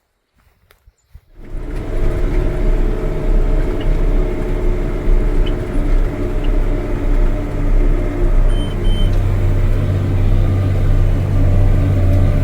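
The engine of a 1980-era farm machine comes in suddenly about a second and a half in and runs steadily with a deep drone. Two short high beeps sound about two-thirds of the way through.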